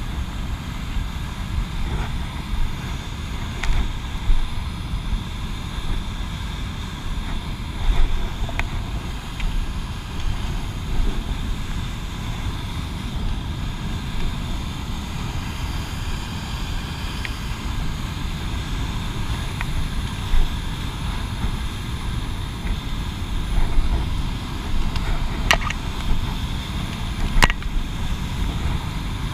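Steady rush of a whitewater cascade tumbling over rock, with wind rumbling on the microphone. A couple of sharp clicks stand out near the end.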